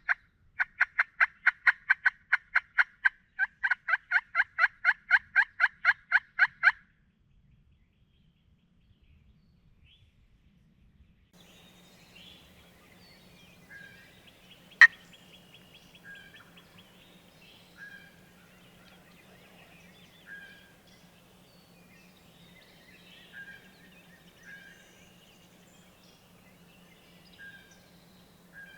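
A fast, evenly spaced series of turkey yelps, about four notes a second for some seven seconds with a short break partway. Then quiet woods with a low steady hum, a small bird calling every couple of seconds, and one sharp click about fifteen seconds in.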